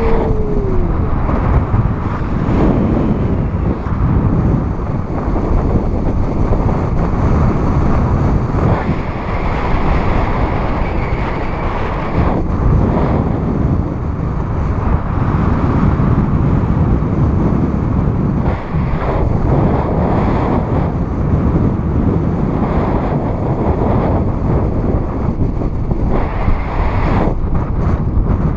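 Airflow of a paraglider's forward flight buffeting the camera microphone: loud, steady wind noise that swells and eases throughout.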